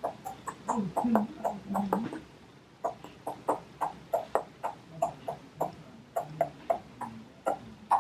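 A person beatboxing: lip pops and mouth clicks, a few a second in an uneven beat, with a few short hummed notes in the first couple of seconds.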